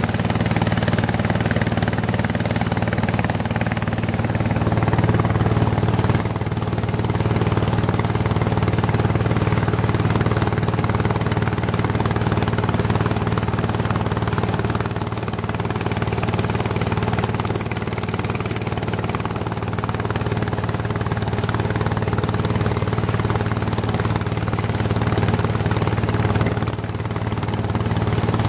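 Long-tail boat engines running steadily at speed, a low, even drone over a hiss of wind and water.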